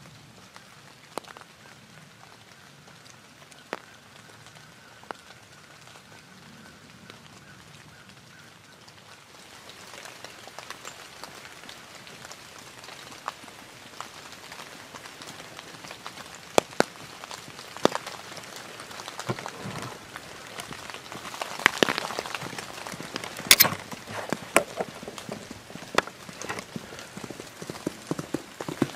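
Light rain pattering on leaves, then from about halfway on a growing run of irregular knocks and thumps: the hoofbeats of a horse coming at a run down a woods road.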